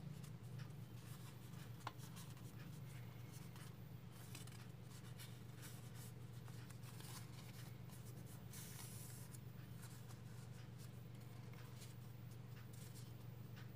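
Faint rustling and crinkling of a square of origami paper being folded and creased by hand, over a steady low hum, with one sharp tick about two seconds in.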